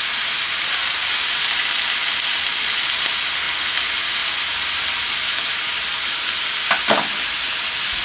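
Thin beef steaks sizzling steadily on a hot, sunflower-oiled ridged griddle plate.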